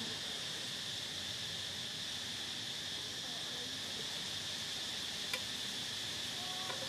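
Steady high-pitched drone of insects, with a single sharp click about five seconds in.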